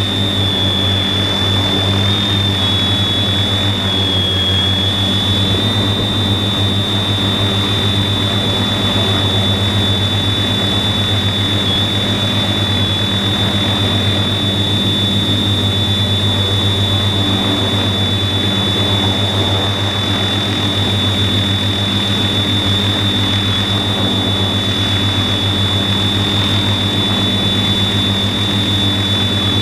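TBS Discovery quadcopter's 400kv electric motors and 15-inch propellers running steadily in a hover, heard from the camera on board: a steady low drone with a thin, high electric whine over it.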